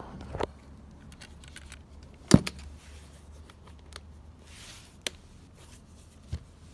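Handling noise from a leather-covered gift case with metal latches: a loud knock about two seconds in, scattered light clicks, and a brief rubbing sound a little past halfway.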